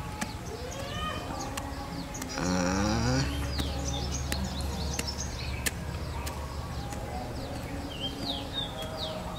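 Small birds chirping and twittering over and over, with a brief louder rasping sound and a low hum about two and a half seconds in, and scattered sharp clicks.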